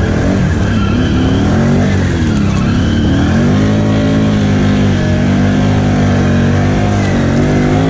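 Can-Am Outlander XMR ATV's V-twin engine under throttle through a mud hole. The revs rise and fall over the first few seconds, then climb and are held high and steady.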